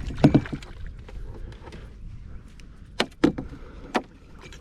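Sharp knocks and clicks in a small fishing boat: one near the start and three more in the last two seconds, over a steady low rumble.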